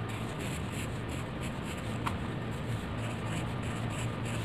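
Pencil lead scratching on paper in short repeated strokes, over a steady low hum.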